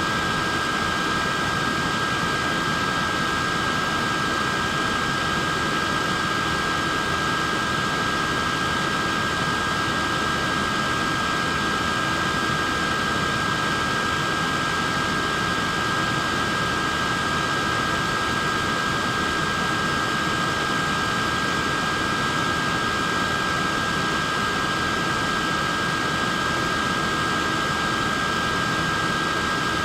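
Portable neck fan running steadily: an even airy rush with a high, constant motor whine.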